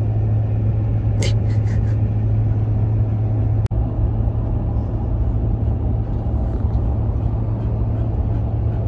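Steady low road and engine drone inside the cab of a moving truck, with a short high-pitched sound about a second in.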